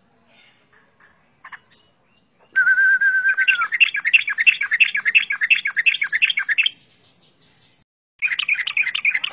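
Yellow-vented bulbul singing loudly. A wavering whistled note gives way to a fast chattering run of about five notes a second lasting some three seconds, and after a short pause a second chattering burst starts near the end.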